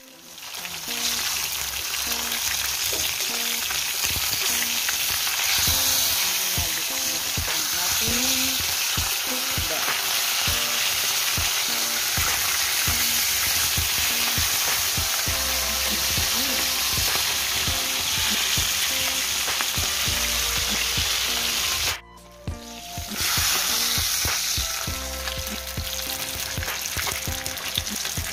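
Two whole tilapia sizzling steadily in hot oil in a wok, nearly cooked, with a metal spatula scraping and knocking against the pan as they are turned. The sizzle breaks off briefly about three-quarters of the way through.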